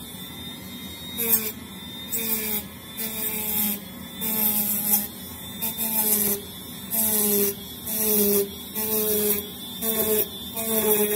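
Dremel rotary tool running at low speed, its spinning bit carving into foam insulation board in short repeated passes about once a second. Each pass adds a scraping hiss, and the motor's pitch dips slightly under the load.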